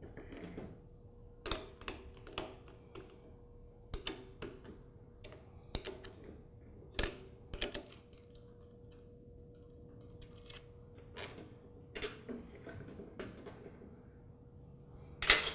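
Scattered metal clicks and taps of a wrench working the bolt on a lawn tractor battery's positive terminal, then the loosened bolt and cable clamp being handled. A faint steady hum runs underneath.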